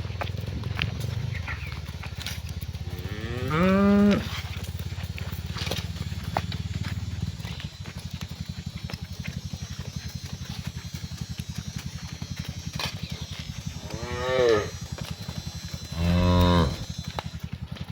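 Cows mooing: one drawn-out moo a few seconds in, then two more close together near the end. A steady low rumble runs underneath, heavier in the first half.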